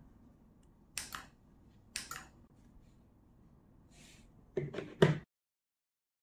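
A few sharp plastic clicks, about a second apart and then a quick cluster of three near the end, as keys on a handheld wireless remote are pressed while it is being paired to a mini WiFi smart switch, whose relay switches the bulb on.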